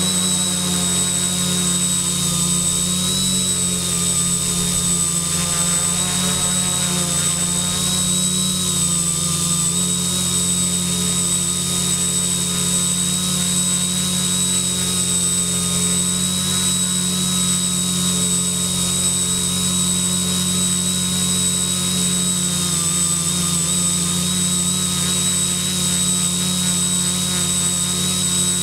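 Quadcopter's electric motors and propellers running steadily in flight in self-level mode: a continuous high whine over a lower hum, its pitch wavering slightly as the motor speeds shift.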